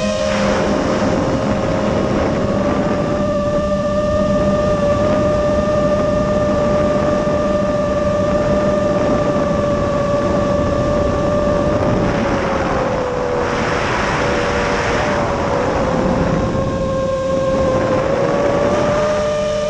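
The brushless motors and propellers of a Nazgul Evoque F5 five-inch freestyle FPV quadcopter in flight, heard through its onboard camera: a steady whine whose pitch dips and splits into two tones as the throttle changes, over a rush of wind noise that swells a little past halfway.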